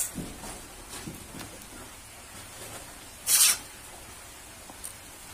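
A wooden rolling pin and a wooden board as luchi dough is rolled out. There are a few light knocks, then one short rubbing scrape a little past three seconds in, which is the loudest sound.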